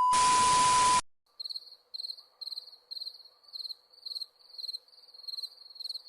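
A loud steady beep over hiss that cuts off about a second in, followed by crickets chirping in a steady rhythm of about two chirps a second.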